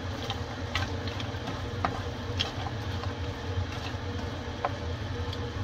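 Kitchen range hood fan running with a steady hum, with a few light clicks of a wooden spoon and nuts knocking in a skillet as the nuts are stirred into the syrup.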